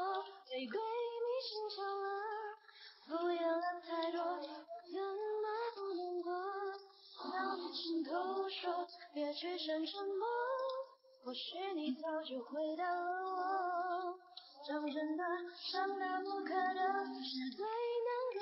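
Background song: a high-pitched female voice singing in phrases with short breaks between them, over light music.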